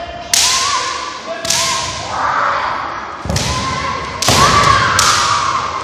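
Kendo bout: five sharp cracks about a second apart from bamboo shinai striking and feet stamping on the wooden floor, mixed with the fencers' shouted kiai, echoing in a large gym.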